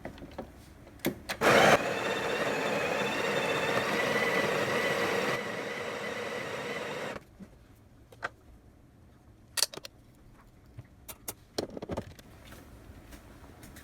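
Breville 870 espresso machine running steadily for about five and a half seconds after a loud start, then stopping abruptly. A few sharp clicks and knocks follow.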